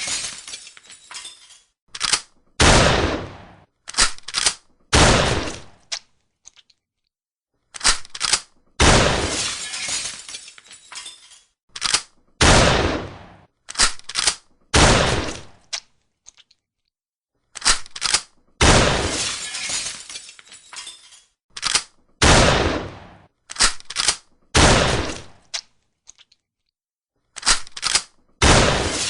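Pump-action shotgun fired over and over, each sudden shot with a long decaying echo and preceded by a quick double clack of the pump being racked. The shots come in sets of three about two to four seconds apart, with a short silent gap between sets.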